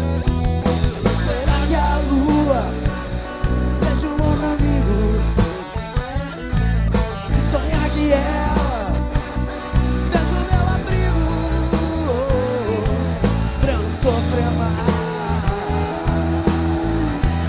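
Rock band playing live: electric guitars on a Les Paul-style guitar, bass guitar and drum kit, with a male lead vocalist singing over them.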